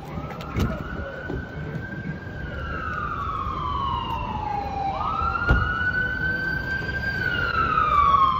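Emergency vehicle siren on a slow wail: each cycle jumps up quickly, holds high for about two seconds, then slides slowly down. The cycle repeats about every five seconds.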